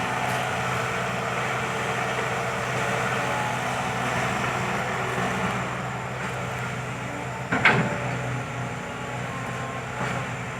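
Diesel engine of a Kobelco SK120 Mark III hydraulic excavator running steadily while it works. A single brief, sharp knock comes about three-quarters of the way through.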